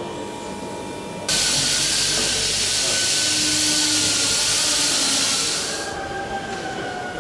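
Compressed air hissing in a steady rush that starts suddenly about a second in and dies away a couple of seconds before the end, over a low workshop hum with faint steady tones.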